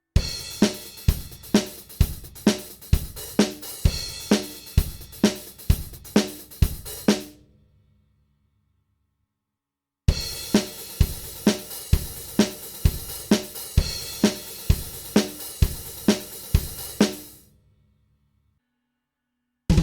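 Sampled acoustic drum kit from the Stigmatized Drummer Kontakt library playing two short grooves of about seven seconds each, with a gap of silence between them. Kick and snare strokes fall about twice a second under a steady wash of cymbals and hi-hat.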